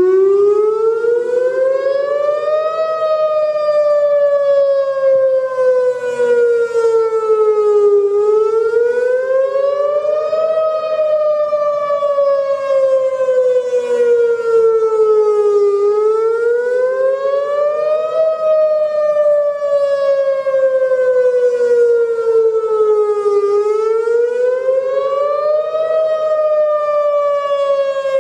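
Whelen WPS-2910 electronic outdoor warning siren sounding its wail tone in a routine test. It comes on abruptly, then rises and falls in pitch over and over, one rise and fall about every seven and a half seconds.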